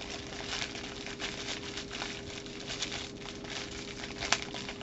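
Thin plastic bag crinkling and crackling as it is handled and pulled at, with the figure inside stuck fast, and one sharper click about four seconds in.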